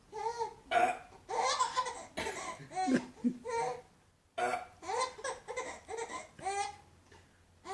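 A baby laughing in a run of short, high-pitched bursts, pausing briefly a little past halfway.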